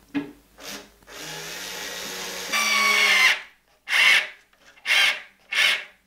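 Bosch IXO cordless screwdriver driving a screw through a leather strap into plywood: the motor runs steadily for about two seconds and gets louder for its last second, then three short bursts follow.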